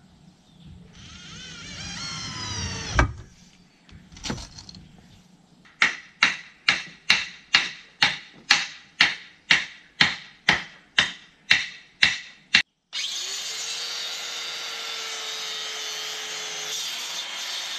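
About fifteen hammer blows on wooden posts, roughly two a second, then a handheld electric circular saw starts abruptly and runs steadily, cutting through a wooden post. Near the start come a rising rasp and two sharp knocks.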